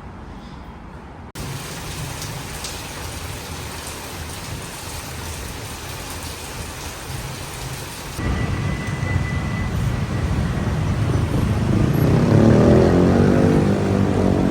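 Heavy thunderstorm rain pouring steadily. About eight seconds in it gives way to busy road traffic, with engines building to their loudest near the end as a vehicle passes close.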